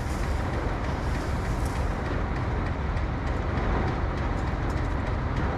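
Grain bin sweep auger running with a steady low mechanical rumble and a rattling haze, as it drags grain along the bin floor.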